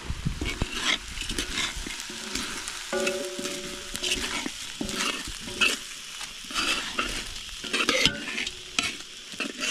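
Rice and duck meat frying in a pot for cook-up rice, sizzling as a spoon stirs and turns it, scraping and clinking on the pot at irregular intervals.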